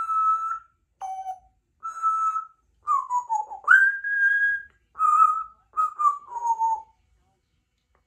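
Congo African grey parrot whistling a run of about eight short, clear notes with short gaps between them. Most notes are held level or step down in pitch, and one about halfway through slides up and is held longest.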